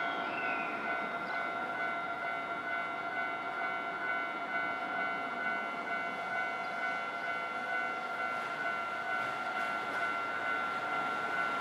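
Japanese railway level-crossing alarm ringing continuously, its electronic bell tones holding steady over a steady rushing background noise.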